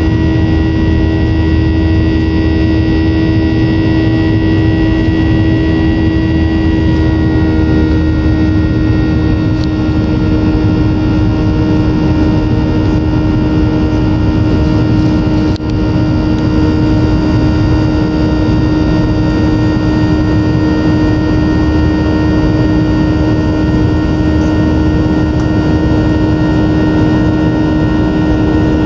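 Cabin noise of a Boeing 737-900ER airborne after takeoff, heard from a window seat beside the wing. Its CFM56-7B turbofan engines run steadily at high power: a loud, even rumble with a steady whine of fan tones over it. The pitch of one of the higher tones shifts slightly about seven seconds in.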